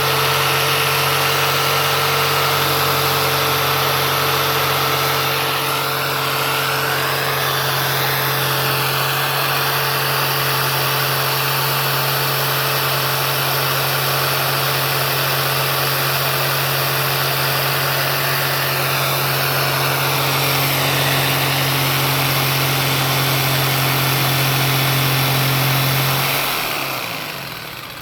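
Jigsaw with a marble blade cutting through a quartz countertop, running steadily under load. It switches off and winds down near the end.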